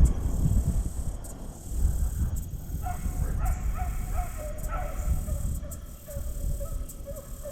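Deer-hunting hounds barking faintly, a string of short, repeated calls starting about three seconds in, over a low rumble.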